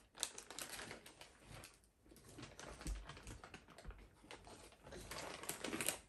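Plastic snack packet crinkling and crackling as it is pulled open, in quick runs of sharp crackles with a short lull about two seconds in.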